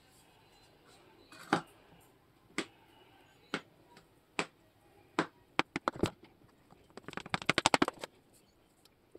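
A knife blade clicking against the bottom and rim of a baking tray as it cuts through a ganache-topped chocolate cake. Single sharp clicks come about a second apart, then a quick run of about a dozen louder clicks about three quarters of the way through.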